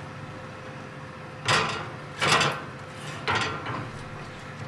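Three short scrapes, about a second apart, as a wooden spatula works fish steaks over on a hot oven's wire grill rack. A steady low hum runs underneath.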